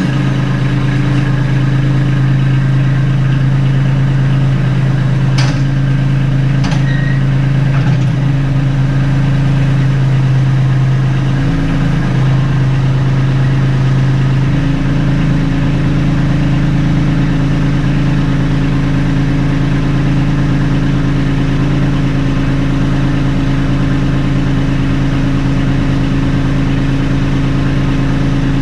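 Kubota B2650 compact tractor's diesel engine idling steadily, just after being started. The tone shifts briefly about twelve to fourteen seconds in, and two short clicks come a few seconds in.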